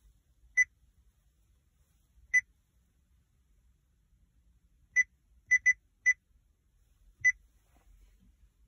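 Short high-pitched touch-feedback beeps from a car's touchscreen head unit as its screen is tapped: seven identical beeps, irregularly spaced, with four close together in the middle.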